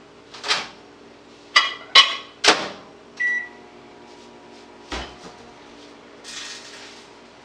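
Microwave oven running with a steady hum while a cupboard is opened and dishes clatter, several sharp knocks and clinks in the first three seconds. A short high tone a little after three seconds and a single knock about five seconds in.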